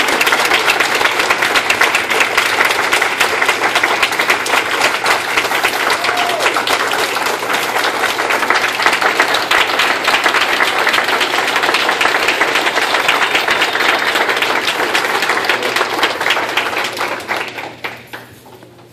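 Audience applauding, a dense, sustained clapping from a roomful of people that dies away near the end.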